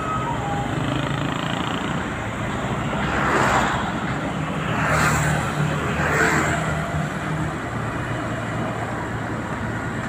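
Road traffic passing on a busy road: a steady low engine hum under a noisy rush, with three vehicles going by in swells about three and a half, five and six seconds in.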